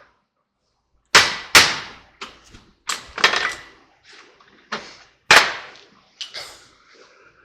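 Hammer blows on the steel yoke of a Ford F-150 front driveshaft while removing the old universal joints and their snap rings. About ten sharp, irregular strikes with a short metallic ring, starting about a second in.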